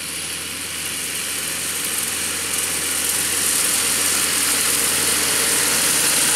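John Deere tractor's six-cylinder diesel engine running under load as it drives past pulling a fertilizer spreader, with a steady high hiss from the spreader. It grows louder as it approaches.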